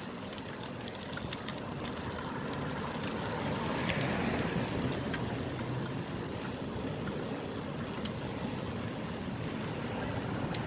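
Steady wind and road noise from riding a road bike along a street, with traffic around it and a few light clicks.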